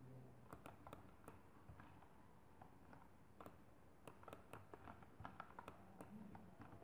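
Faint, irregular clicks and taps of a computer mouse and keyboard over near-silent room tone.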